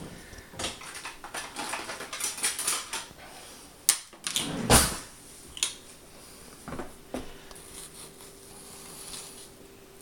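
Kitchen handling noises: a run of clicks, rustles and light knocks on the counter, with a sharp click about four seconds in and a louder bump just after. A faint steady hum comes in over the last few seconds.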